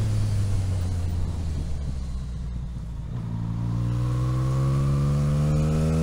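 Motorcycle engine running at low revs, then, about halfway through, the throttle opens and the engine note climbs steadily as the bike accelerates along the road.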